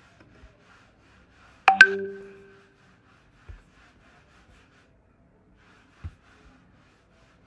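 A short ding, about two seconds in: a sharp double click followed by a ringing tone that fades within about a second. Two soft low knocks follow later.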